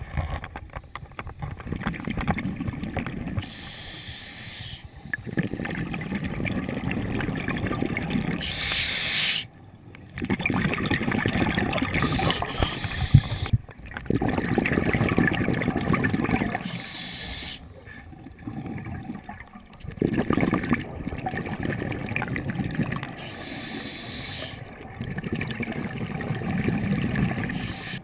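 Scuba diver breathing through a regulator underwater. Long bubbling rushes of exhaled air every few seconds alternate with softer hissing inhalations.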